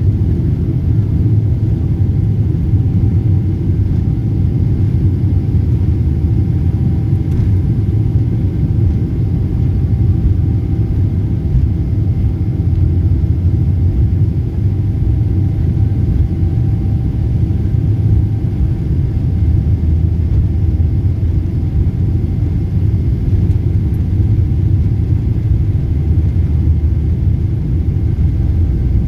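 Steady low rumble of engine and airflow noise inside the cabin of a Boeing 777-300 jet airliner, with faint steady whining tones over it.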